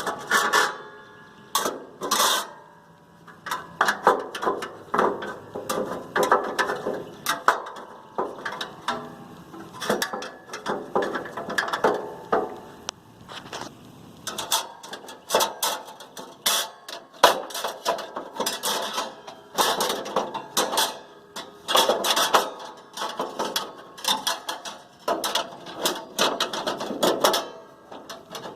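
Metal cooking grates of a Weber Genesis II gas grill being handled and set back into the grill: irregular metal clanks, knocks and scrapes, some ringing briefly.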